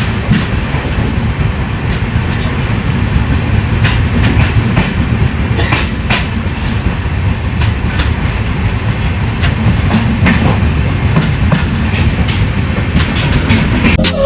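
Passenger train running along the track: a steady rumble of wheels on rails with irregular sharp clicks over it.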